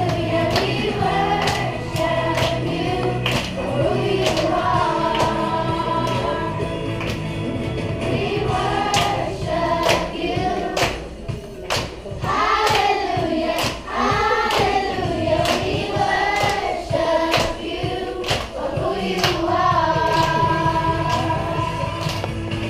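A children's choir singing a gospel song in unison over a bass accompaniment with a regular beat.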